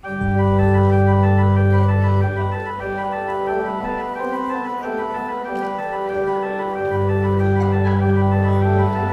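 Church organ postlude: full held chords start abruptly and move slowly from chord to chord, with deep bass notes underneath for the first two seconds and again near the end.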